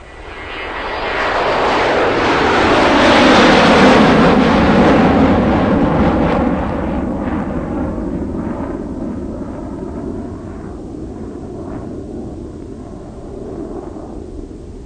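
A loud vehicle passing by: rushing engine noise swells to a peak about four seconds in, then slowly fades as its pitch falls.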